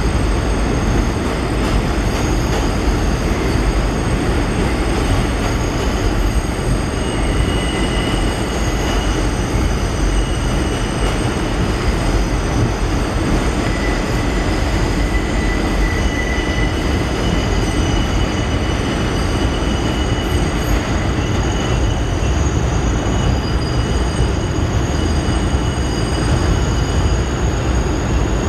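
New York City subway train rolling around tight curves of elevated track, a steady low rumble with its steel wheels squealing against the rails in several high, thin tones that come and go.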